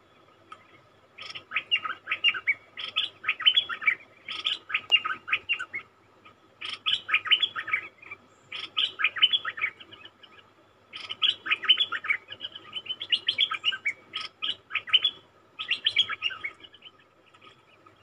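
Stripe-throated bulbul singing: runs of quick, rapid notes delivered in four or five phrases with short pauses between them.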